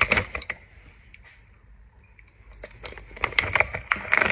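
Packaging crinkling and rustling as a boxed brake disc is unwrapped: a burst of crackly clicks at the start, a quieter spell, then denser crackling building toward the end.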